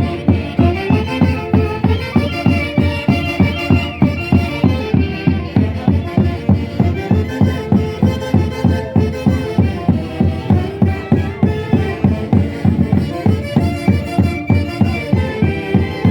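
Traditional Andean orchestra music with wind instruments carrying the melody and a violin, over a strong, even beat of about two pulses a second.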